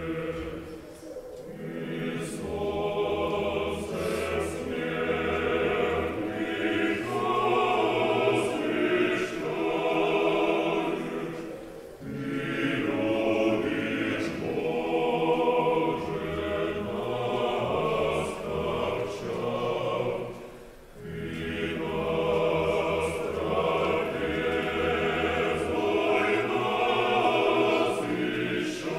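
Choir singing a slow chant in long held phrases, with short breaths between phrases about a second in, around twelve seconds in and around twenty-one seconds in.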